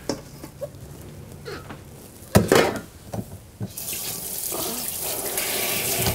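A knock about two and a half seconds in, then a kitchen tap running steadily into a stainless steel sink as hands are rinsed under it, starting a little past halfway and cutting off at the end.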